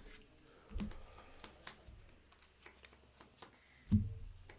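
Trading cards being handled and shuffled on a tabletop, with light clicks and two dull thumps, one about a second in and a louder one near the end.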